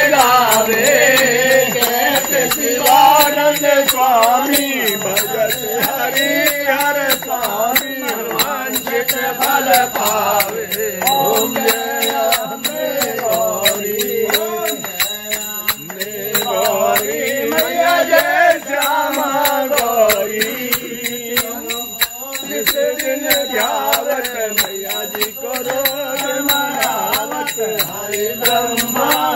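Hindu devotional music: a bhajan or chant sung to instrumental accompaniment, with fast, steady jingling percussion keeping time.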